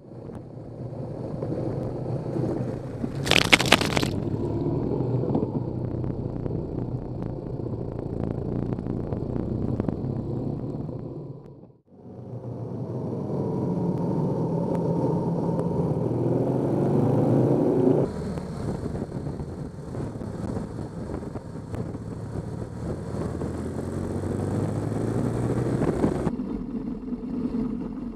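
Motorcycle on knobby tyres riding along: engine running with revs rising and falling, under tyre and wind noise. A sharp scrape about three to four seconds in. The sound drops out briefly near the middle and changes abruptly twice later on.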